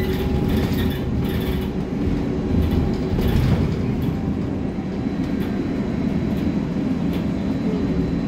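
Interior of a moving city bus: a steady low rumble of drivetrain and road noise, with a faint whine that fades out in the first second or so.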